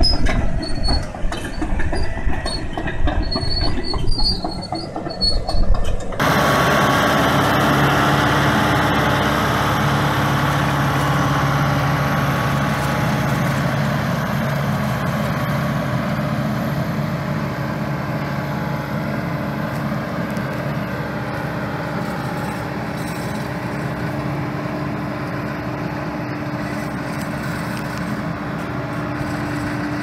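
A Caterpillar crawler bulldozer ripping compacted soil with its rear shanks: a heavy diesel, with the steel tracks clanking and squealing in short high notes. About six seconds in it gives way abruptly to a tractor's engine running steadily under load as it pulls a chisel plow through the soil.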